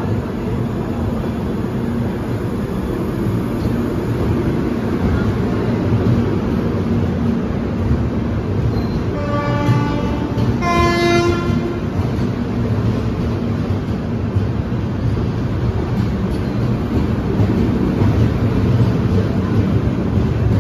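Passenger coaches rolling past as the train pulls out, a steady rumble of wheels on the rails that grows slightly louder. About nine seconds in, a locomotive horn sounds for about three seconds, a higher note followed by a lower one.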